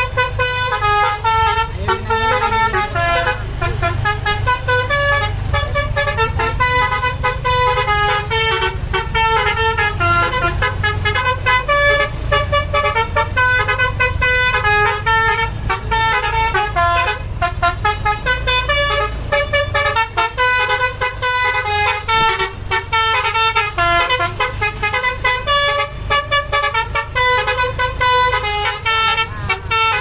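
A tour bus's 'basuri' musical telolet horn playing a fast melody, one pitched note after another without pause, over the low steady rumble of the bus's engine.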